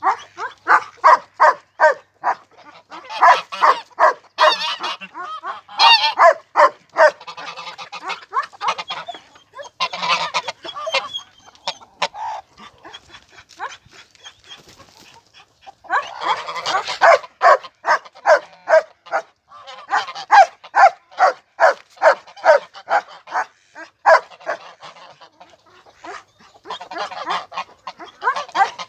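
Birds calling in long rapid runs of short, harsh calls, about four a second, with brief pauses between runs.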